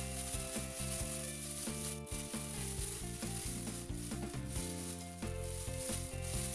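Thin plastic bag crinkling and rustling as it is squeezed and turned over by hand, over background music with held notes.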